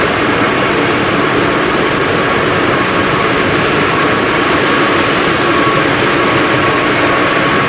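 Loud, steady mechanical din of a running MAN web offset rotary printing press, with a faint, thin, steady whine over it.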